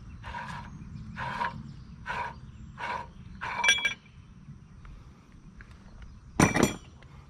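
A rasping sound repeated about once a second through the first half, then a ringing metal clink, and about six seconds in a loud, short metal clank from the truck's wheel-hub parts.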